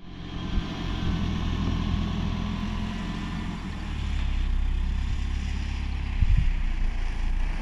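Suzuki Jimny's engine running as the car pulls away slowly across sand, with a few low thumps near the end.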